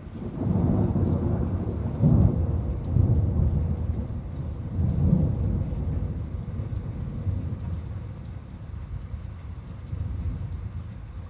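Rolling thunder: a low rumble that starts suddenly, swells in several peaks over the first five seconds, then slowly dies away.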